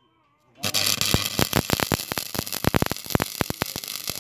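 Stick-welding arc from an E-6013 rod, struck about half a second in, then burning with a steady frying hiss full of rapid, irregular crackles and pops.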